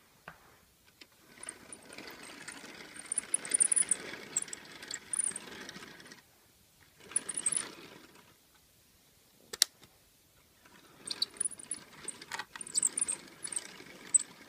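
A Lego tram's plastic wheels rolling along plastic Lego track as it is pushed by hand, a light rattle with small clicks. It comes in three runs with pauses between them, and one sharp click comes near the middle.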